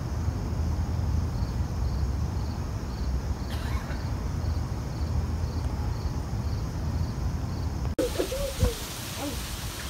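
Outdoor backyard ambience: a steady low rumble with a faint insect chirping evenly, about three chirps a second. After a cut near eight seconds in, a few short gliding calls are heard over the rumble.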